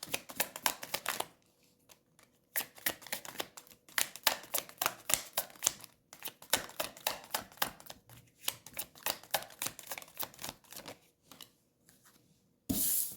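Tarot cards being shuffled by hand: quick runs of card edges clicking against each other, broken by short pauses, with a brief louder swish of cards near the end.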